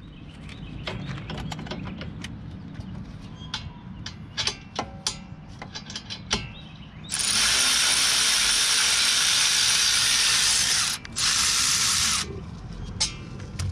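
Sharp clicks of tools against metal, then a power ratchet runs with a loud hiss for about four seconds, stops briefly, and runs about a second more, spinning a brake caliper bracket bolt loose.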